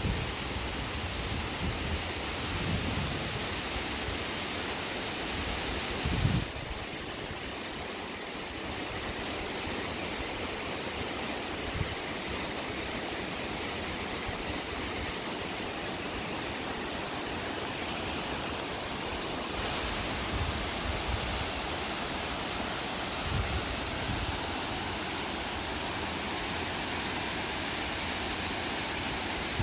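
Steady rushing roar of a waterfall, an even noise with no tones in it, whose character changes abruptly about six seconds in and again near twenty seconds. Low rumbles come and go underneath.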